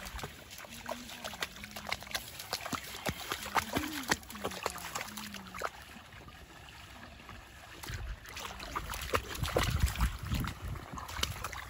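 A young dog wading and pawing in a shallow muddy puddle: scattered splashes and sloshes of water, growing into heavier, denser splashing about eight seconds in as it digs at the water with its front paws.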